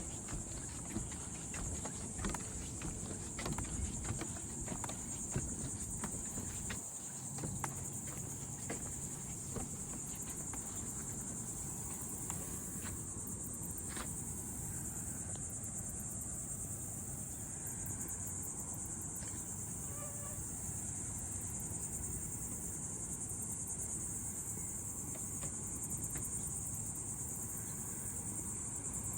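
Steady insect chorus, a continuous high-pitched drone of crickets or similar insects. Scattered clicks and knocks with low rumbling over the first ten seconds or so.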